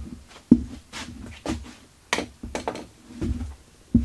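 A string of short thumps and knocks, about two a second and unevenly spaced, from a person moving about the workshop: footsteps and handling, with a sharper knock near the end.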